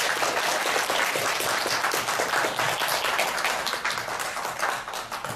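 Audience applauding: a dense, steady patter of many hands clapping, easing slightly near the end.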